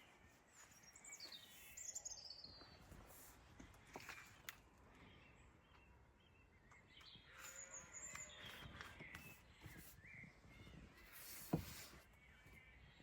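Faint birdsong: scattered chirps and short descending trills, with one sharp knock near the end.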